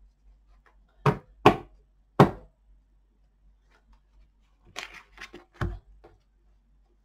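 Tarot cards being dealt out and knocked down on a table: three sharp knocks between one and two seconds in, then a quicker run of lighter taps and clicks about five seconds in.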